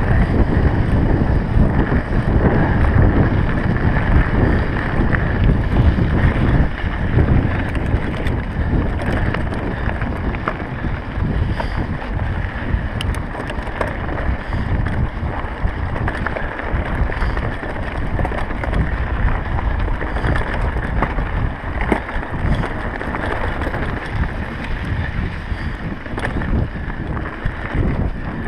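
Wind buffeting the microphone over the rumble of a mountain bike's tyres rolling on a loose, rocky dirt track, with many small clicks and rattles from stones and the bike.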